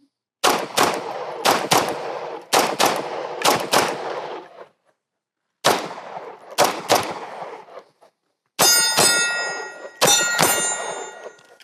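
Pistol fired in rapid strings, mostly quick pairs of shots, with a short pause about five seconds in. In the last few seconds, hit steel targets ring with a sustained metallic tone.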